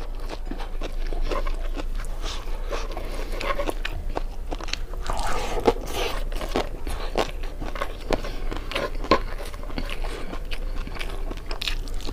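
Close-up chewing of food: a steady run of irregular crunches and wet clicking mouth sounds, a few sharper crunches standing out.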